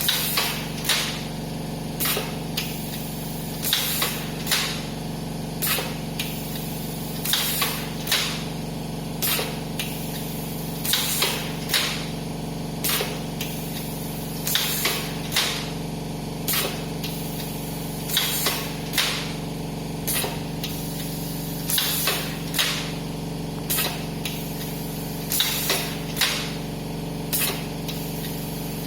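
Pneumatic cup screen-printing machine cycling: short sharp hisses of compressed air from its valves and cylinders come about every second or so, over the steady hum of the air compressor running.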